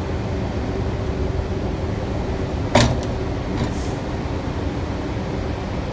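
Steady low rumble and hum of a subway car, with one sharp metallic clank a little under three seconds in and a fainter click just after.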